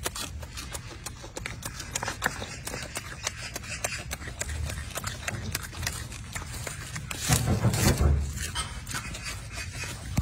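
Golden snub-nosed monkey chewing and handling a bunch of fresh leafy greens: a run of small crisp crackles and rustles, with a louder low rustle about seven to eight seconds in.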